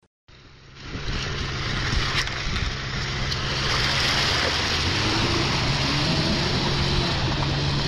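Lada Niva 4x4's engine running steadily as it drives into a river, with water rushing and splashing around the car. The sound fades in over the first second.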